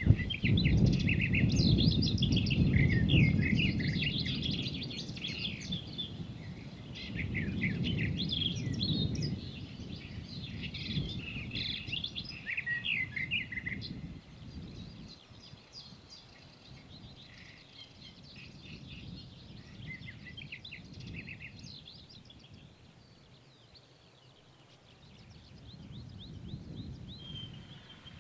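Several songbirds chirping and trilling over a low, uneven rumble of wind on the microphone. The wind is strongest in the first few seconds and dies down after the middle, and the birdsong thins out in the last few seconds.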